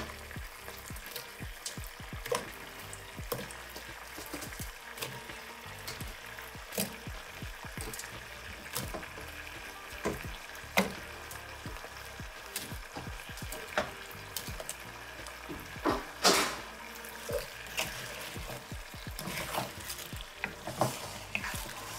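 Sauce bubbling and sizzling in a hot nonstick pan while fried soy-protein pieces are dropped in and turned with a wooden spatula, giving scattered clicks and scrapes over the steady sizzle; the loudest knock comes about 16 seconds in.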